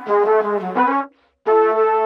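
Theme music for a news show's title sequence: a quick run of short notes, a brief break just after a second in, then a held note followed by shorter ones.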